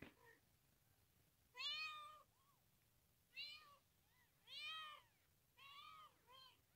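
Ten-day-old kitten mewing repeatedly: about five short, high-pitched cries roughly a second apart, each rising and then falling in pitch.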